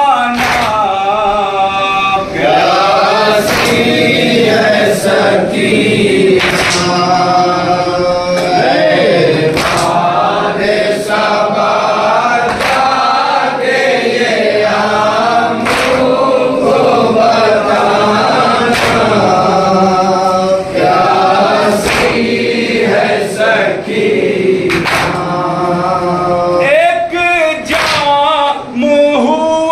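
Voices chanting a nouha, a Shia mourning lament, in chorus. Sharp chest-beating slaps (matam) land every second or two.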